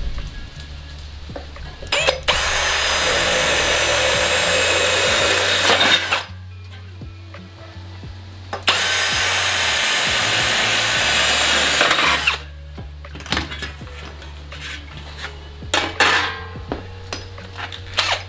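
Cordless drill boring through a sheet-aluminium fender panel: two runs of about four seconds each, each stopping abruptly, followed by light clicks and knocks as the panel is handled.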